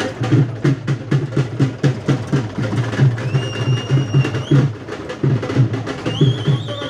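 Drums beaten in a fast, steady rhythm, with a high, held piping tone joining in about halfway through and again near the end.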